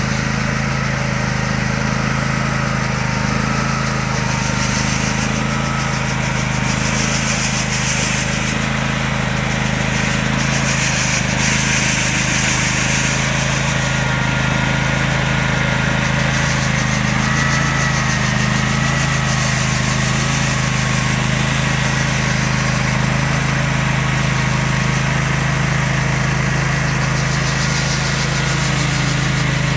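Husqvarna Rider 17 AWD ride-on's engine running steadily while driving the front rotary sweeper brush through snow, with a high rushing noise from the spinning brush and thrown snow that swells and fades.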